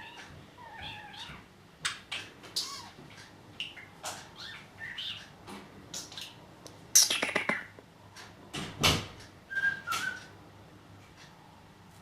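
Budgerigar vocalising in short, scattered chirps, clicks and whistles, including odd sounds it was taught. A loud, rasping squawk comes about seven seconds in, and a short whistled note follows about three seconds later.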